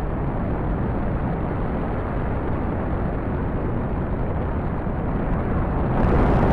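Rocket launch: the engines' steady, dense rumble with heavy bass, growing slightly louder near the end and then cutting off suddenly.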